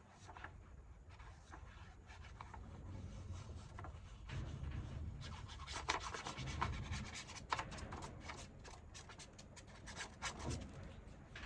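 Paper being rubbed and handled on a work surface: scraping, crackling strokes, sparse at first and then dense and rapid from about halfway through.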